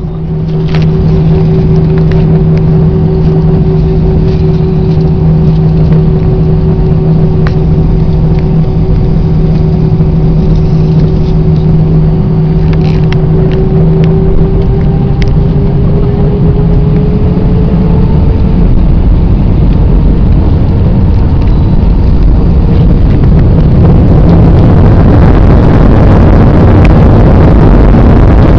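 Airbus A320 cabin noise with the jet engines running: a steady hum with two held tones, the higher one edging up in pitch partway through. Near the end the engines spool up and a broad rushing noise swells and grows louder as takeoff thrust is applied.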